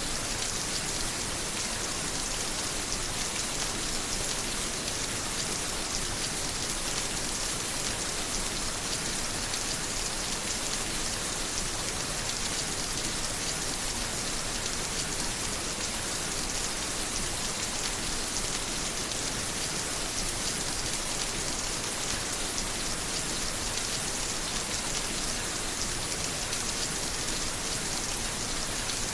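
Steady rain falling and pattering on a surface, a dense, even hiss with fine drop crackle, brightest in the high range, unchanging in level.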